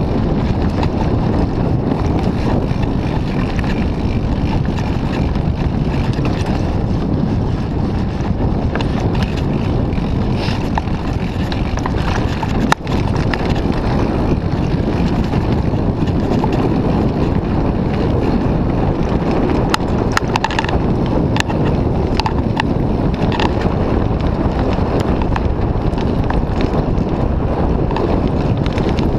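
Wind buffeting the camera microphone and tyres rolling fast over a dirt trail during a mountain-bike descent, with rattles and knocks from the Mooto-X RSL bike; one sharp knock about halfway through and a run of clicks a little later.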